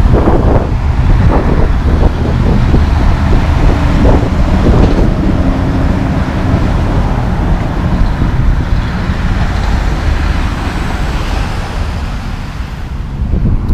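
Highway traffic going by: a Mack Anthem semi-tractor pulling Super B fuel tankers passes, its diesel engine and tyres loud over passing cars. The noise eases a little near the end.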